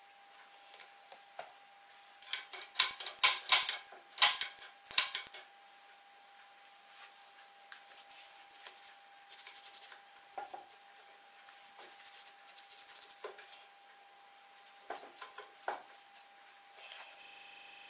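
A hand trigger spray bottle squirting cleaner several times in quick succession onto a Singer 29K33 cobbler's sewing machine, then a cloth rag rubbing and wiping the machine's metal, with a few brief handling noises near the end.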